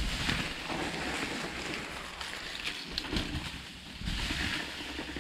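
Mountain bike rolling down a steep dirt drop: tyres running over dirt and leaves, with the bike knocking and rattling over bumps a few times, and wind buffeting a GoPro's microphone.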